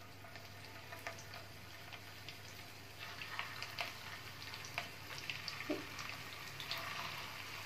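Hot oil in a frying pan sizzling faintly with scattered small pops and crackles as mutton koftas are added one at a time; the crackling gets busier after about three seconds.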